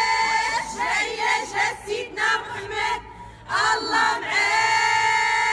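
High voices singing or chanting together, long held notes alternating with short broken phrases.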